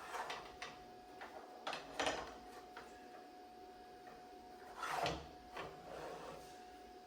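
Light knocks and rustles of things being handled, scattered and irregular, the loudest about two seconds in and near five seconds, over a faint steady hum.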